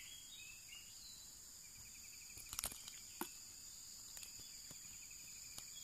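Faint insect chorus: a steady high-pitched buzz with a repeating pulsed trill coming and going. A few short sharp knocks stand out in the middle, the loudest about two and a half seconds in.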